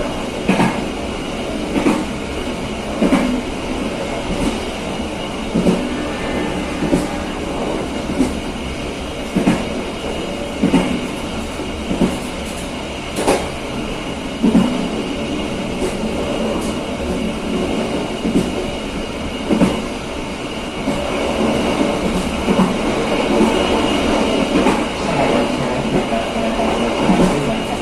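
KA Serayu passenger train running along the track: a steady rumble from the wheels on the rails, with a sharp clack over the rail joints roughly once a second.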